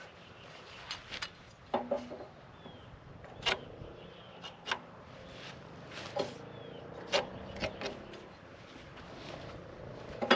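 Scattered sharp knocks and clicks of wood, about a dozen at uneven intervals, as the 2x4 wall plates are handled and marked out for stud layout.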